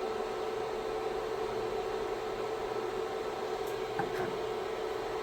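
Steady electrical hum over an even hiss, like a kitchen appliance or fan running, with a brief light clink about four seconds in.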